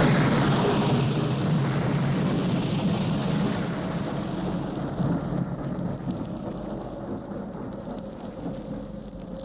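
Thunder sound effect: a sudden loud crack, then a long low rumble that slowly fades away.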